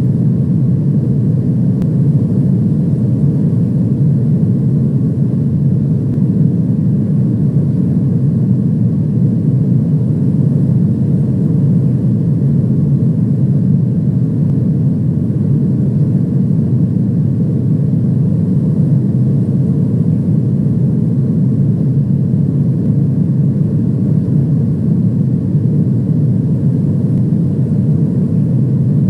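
Steady low rumble of airliner cabin noise, engines and airflow, holding even with no change in pitch or level.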